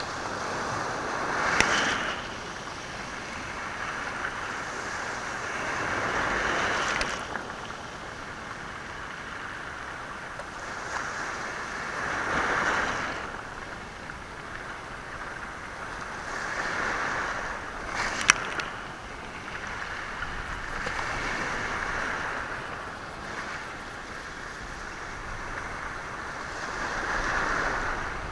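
Sea waves washing in and drawing back over a stony shore, one surge every four to six seconds, with the stones sounding as the water moves them. Two sharp clacks of stone on stone stand out, one near the start and one about two-thirds of the way through.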